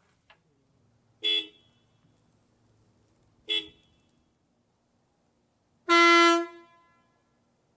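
Horn of an Oshkosh 8x8 military truck sounding: two short toots about two seconds apart, then a longer, louder blast about six seconds in.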